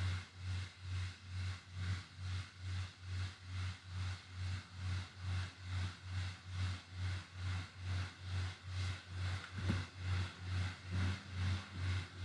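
A low hum that pulses evenly, about three times a second, from a machine running in the room.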